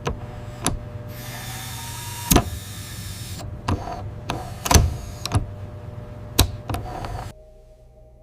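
Sharp clicks and taps of small parts and tools during watch reassembly, over a steady hum, with a hiss about a second in that lasts a couple of seconds. The sounds cut off suddenly near the end.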